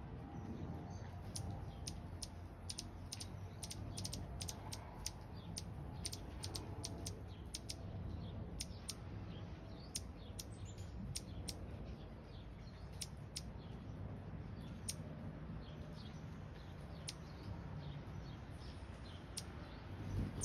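Hummingbird giving a long series of short, sharp chip notes, irregular and closely bunched in the first few seconds, then sparser, over a steady low background hum.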